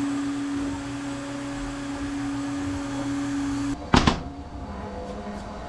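Workshop machine motor running with a steady hum and whirr that cuts off suddenly a little under four seconds in, followed by a loud knock, then a quieter, lower-pitched machine hum.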